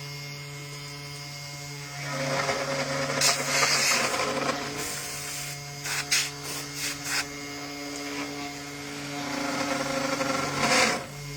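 CNC wood router at work: the spindle motor hums steadily while the bit cuts into wood at a reduced feed rate, with a rougher cutting noise that swells about two seconds in and again near the end, and a few sharp clicks in the middle.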